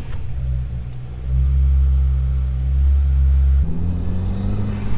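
2015 Subaru WRX turbocharged flat-four, fitted with a Cobb Big SF intake, running just after start-up with a deep, steady idle. Its note shifts about three and a half seconds in.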